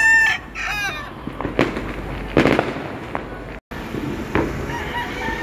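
A rooster crowing at the start, then several sharp fireworks bangs, the loudest about two and a half seconds in, with one more near the end.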